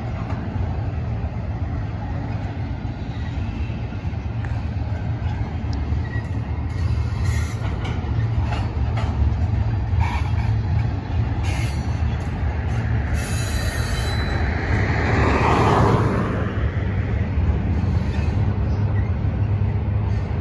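Union Pacific double-stack intermodal freight train rolling across a railway overpass: a steady low rumble of container well cars on the rails, with faint scattered ticks and a louder swell about fifteen seconds in.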